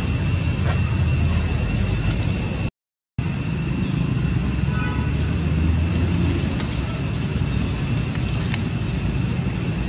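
Steady outdoor background noise: a constant low rumble with a steady high-pitched whine over it. The sound drops out completely for about half a second roughly three seconds in.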